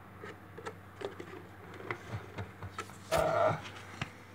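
Scattered light knocks and clicks from objects being handled, with a louder brief scrape about three seconds in, over a steady low hum.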